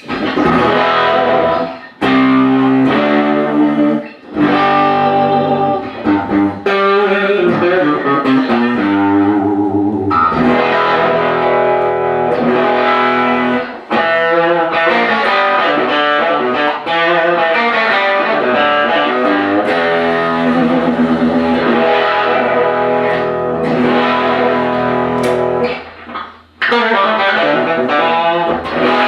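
Gretsch 5129 electric guitar fitted with newly installed TV Jones Classic pickups, played through an amplifier: a mix of strummed chords and single-note lines, with a few short pauses, as a test of the new pickups and wiring harness.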